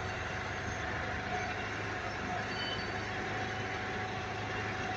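Forklift engine running steadily, a low even hum.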